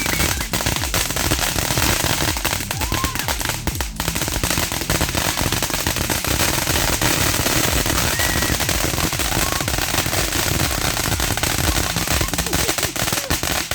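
Fireworks crackling and popping, many small bangs in rapid, overlapping succession without a break.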